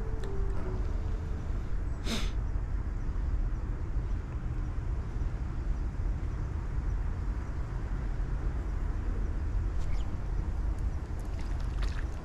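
Steady low outdoor rumble with no clear pitch, with one sharp click about two seconds in and a few faint ticks near the end. Background music dies away in the first second.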